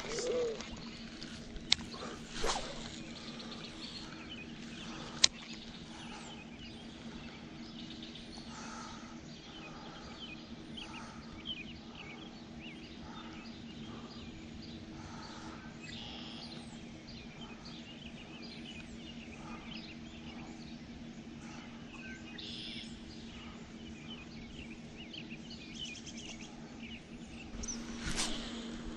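Many small birds chirping and calling over a steady low hum, with two sharp clicks in the first few seconds.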